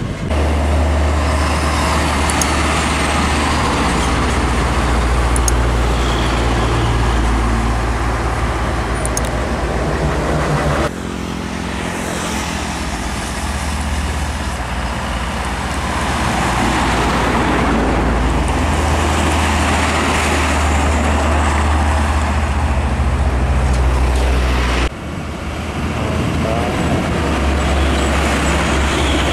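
Heavy diesel trucks, Hino cargo trucks among them, driving past close by on a highway: a loud, steady low engine rumble with tyre noise. The sound breaks off abruptly twice, about 11 and 25 seconds in, where one clip cuts to the next.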